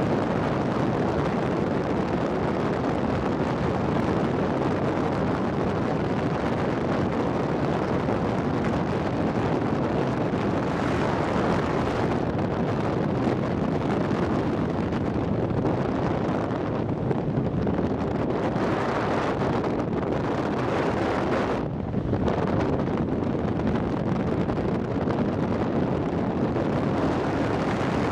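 Steady wind rush buffeting the microphone on the bow of a small boat under way, with a brief dip about three-quarters of the way through.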